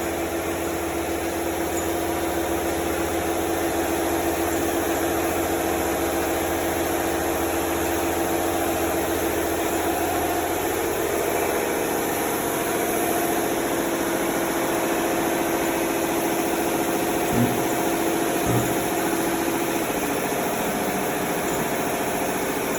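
A dual-action (DA) orbital sander running steadily while sanding primer surfacer on a car panel, a constant hum over the paper's rasp. Two light knocks come a little past halfway, and the sander's tone falls away about twenty seconds in.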